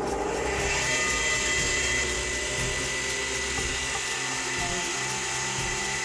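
Electric bench polisher spinning a felt buffing wheel: the motor comes on at the start and runs with a steady whine. In the second half a steel hatchet head is held against the compound-charged wheel for polishing.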